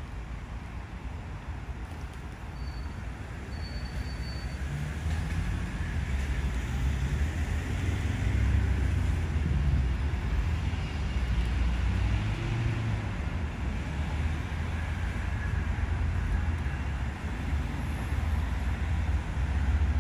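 Low, steady rumble of distant road traffic that grows louder after the first few seconds, with two brief faint high whistles early on.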